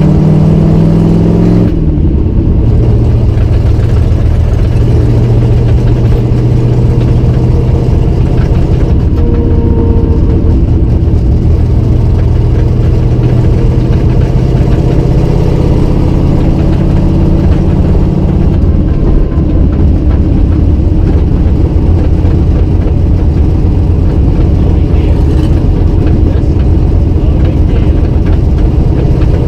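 Loud in-cabin engine and exhaust sound of a cammed 351 Windsor V8 Fox-body Mustang with forward-facing headers, cruising on the street. The engine note drops about two seconds in, then holds steady.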